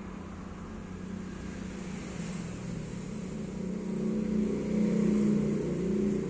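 A motor vehicle engine hums steadily, growing louder over the second half and peaking about five seconds in before easing slightly.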